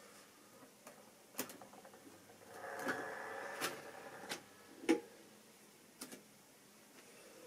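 Model railway locomotive's small electric motor whirring briefly as it runs a short way, with several sharp clicks of the model and track being handled; the loudest click comes about five seconds in.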